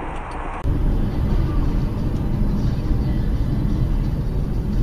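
Steady low road and engine rumble of a moving car, heard from inside the cabin through a dashboard camera's microphone. The rumble jumps abruptly louder about half a second in, where a different recording begins.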